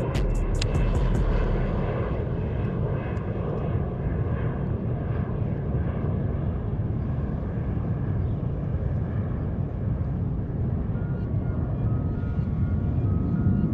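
Steady low engine drone, a continuous rumble with faint whining tones above it.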